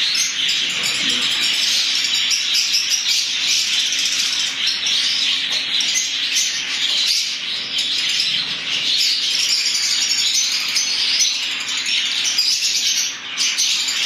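A flock of Fischer's lovebirds chirping and chattering together, a dense, unbroken high-pitched chatter of overlapping calls.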